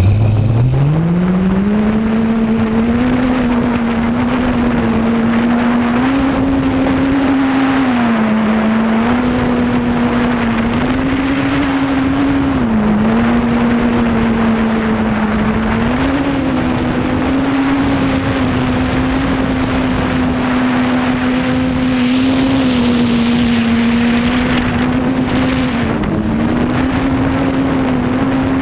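Quadcopter's electric motors and propellers spinning up from rest in the first second or two, then running at a steady hum that steps up and down a little as the throttle changes. A steady rushing hiss lies under it, heard close on the onboard microphone.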